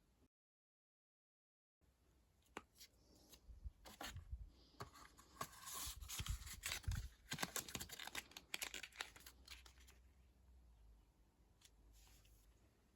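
Cosmetics packaging being handled: irregular rustling, crinkling and small clicks, busiest from about two to ten seconds in, after a short dead-silent gap from an edit.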